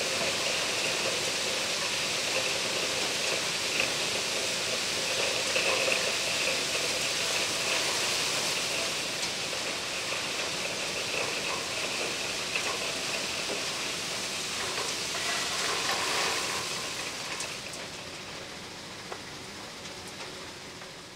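Crushed-rock ballast pouring from an overhead quarry loading bin into a steel hopper wagon: a steady rushing hiss. It fades away over the last few seconds.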